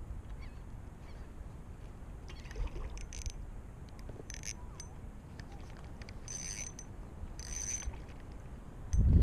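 Penn spinning reel cranked in short spurts, giving a brief high whirr about four times, over a low wind rumble on the microphone. Just before the end the rumble suddenly gets much louder.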